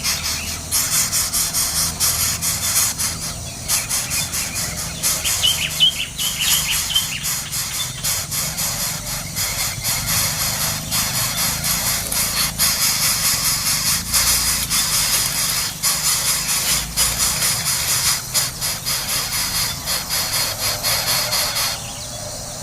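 Nestling birds giving high-pitched begging squeals in a rapid, continuous stream, with a few clearer chirps about a quarter of the way in; the sound drops away just before the end.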